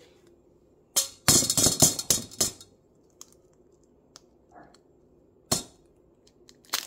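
An egg being handled and cracked against the rim of a stainless steel mixing bowl: a flurry of quick sharp clicks and knocks from about one to two and a half seconds in, then two single sharp knocks near the end.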